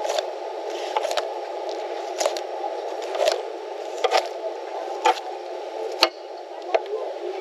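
Fillet knife cutting a fish fillet off along the rib cage, with a short sharp click or crunch about once a second as the blade passes over the ribs, over a steady background hiss.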